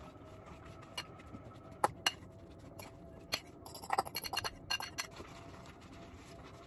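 A metal spoon scraping and clinking against a ceramic bowl as a soft cottage-cheese filling is scooped out. The sharp taps are scattered, with a quick run of them about four seconds in.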